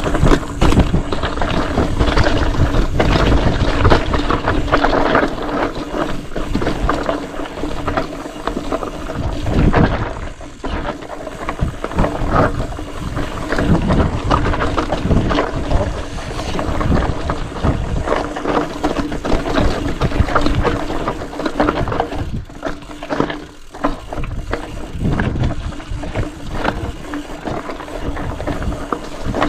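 Mountain bike ridden over a rough dirt trail: a constant rush of tyre noise with frequent rattles and knocks from the bike over bumps.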